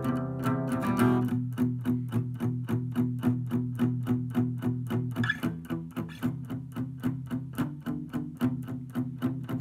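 Acoustic guitar picked in a steady, even pattern of about five notes a second over ringing low notes.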